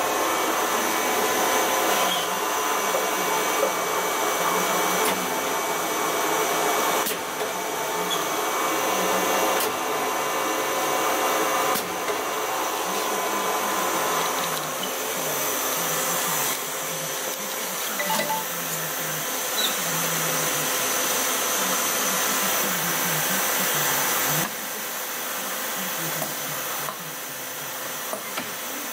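Steady machinery whir and hiss with a faint high whine, the running noise of a machine shop or a powered-up CNC lathe. The level shifts abruptly a few times.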